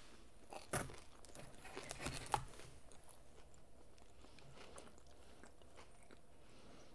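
Crunchy chewing of a battered corn dog right at the microphone: a run of crisp crunches in the first couple of seconds, the sharpest about two and a half seconds in, then only faint chewing.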